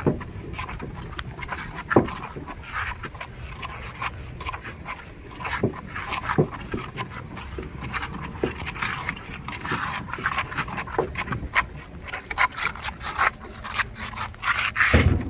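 A person panting hard while hauling a jon boat on a wheeled dolly through sand, with irregular crunching and scraping strokes from steps and wheels in the sand.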